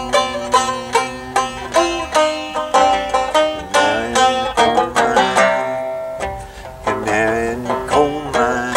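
Banjo picked in a steady run of plucked notes, an instrumental break between sung verses of a slow folk song; the picking thins to a few longer ringing notes around the middle.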